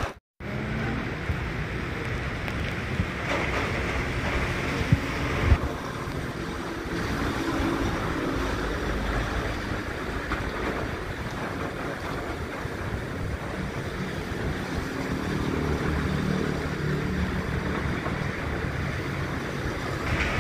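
Heavy typhoon rain and strong wind: a steady hiss, with traffic passing on the wet road. A couple of thumps about five seconds in.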